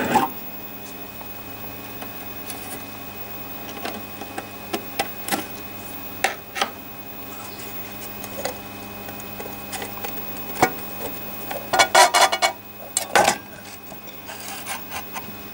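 An old Ferranti electricity meter's case being worked open by hand: scattered clicks and scrapes of the cover being pried from its base. A quick burst of clicks about twelve seconds in and another knock just after, over a steady low hum.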